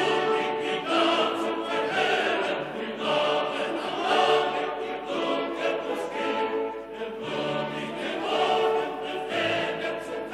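Background music: classical choral music with singing voices.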